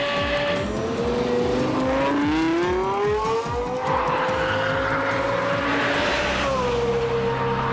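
Lexus LFA's 4.8-litre V10 revving hard on the circuit. Its pitch climbs over the first few seconds, holds high, and then falls a little about six and a half seconds in.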